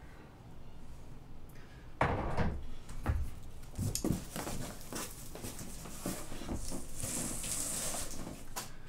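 Large cardboard shipping box being opened by hand: a few sharp cardboard knocks about two seconds in as the flaps are pulled up, then continuous scraping and rustling of cardboard flaps being folded back and pressed down.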